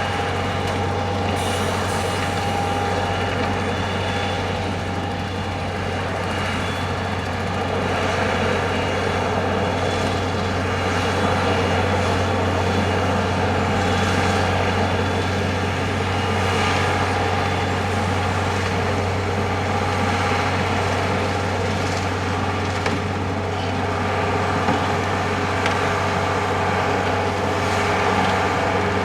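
Heavy vehicle, likely a snow-clearing truck, with its engine running steadily: a constant low drone under a dense rushing noise.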